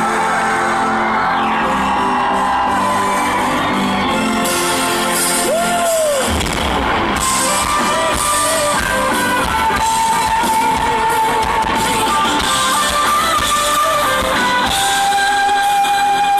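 A song with singing and guitar played loud over a stage PA system. About six seconds in it moves into a section with a much heavier bass.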